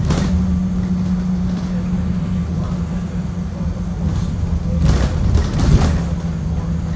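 2018 Blue Bird Vision school bus under way, heard from inside the cabin: a steady low engine and road drone with a constant hum. There is a knock at the start and a few rattling knocks about five to six seconds in.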